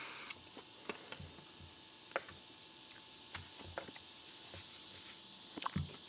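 Hands tying fishing line with an apple on a wooden tabletop: faint scattered small clicks and a few soft knocks.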